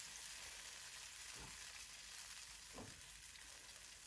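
A thin soy-and-ketchup glaze sizzling faintly in a non-stick pan as it is stirred, with two soft knocks about a second and a half and about three seconds in.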